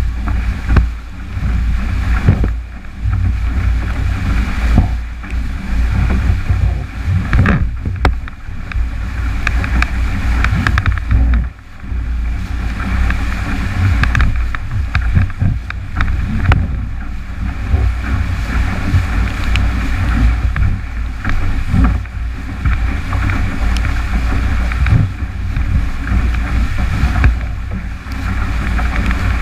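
Strong wind buffeting the microphone of a camera fixed to a 29er skiff, in a loud gusting rumble. Water rushes and splashes along the hull as the boat sails fast through chop.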